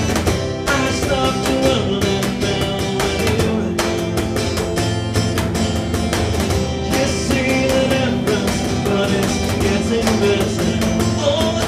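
A live band playing a rock song: electric guitars over a steady beat, with a singing voice.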